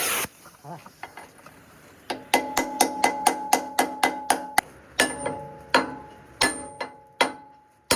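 Hammer blows on steel, each strike ringing with a metallic tone. A fast run of about ten strikes, roughly four a second, starts about two seconds in, followed by slower single strikes. A loud steady noise cuts off just at the start.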